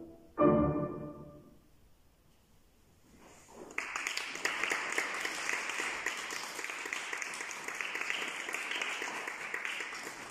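Closing piano chord of the movement struck and left to ring, fading away over about a second and a half. After a short hush, audience applause breaks out about four seconds in and carries on.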